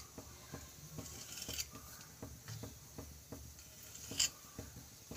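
Faint scattered clicks and taps of hands cutting a rolled dough log into pieces on a wooden board, with one sharper tick about four seconds in.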